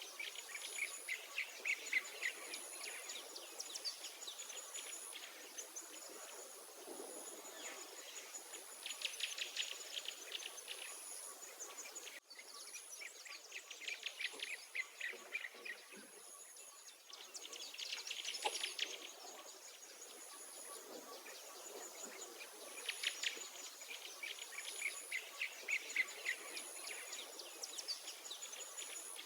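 Songbirds singing trilled phrases that come back every several seconds, over a steady, pulsing high-pitched chirring of insects.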